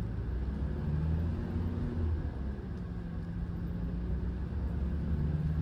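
A vehicle's engine running with a steady low rumble and hum.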